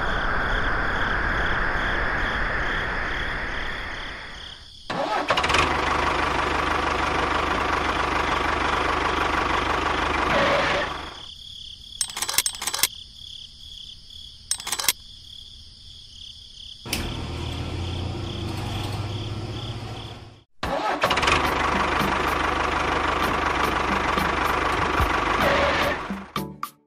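Engine-like running sound for the model tractors, breaking off and starting again several times. In the middle is a quieter stretch with a few sharp clicks.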